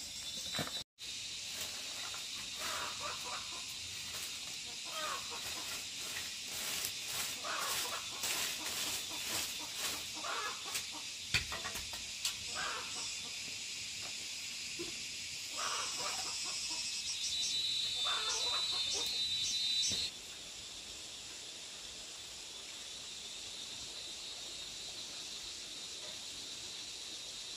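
Chickens clucking in short, irregular calls over a steady high-pitched insect drone; the clucking stops about twenty seconds in, leaving the drone on its own.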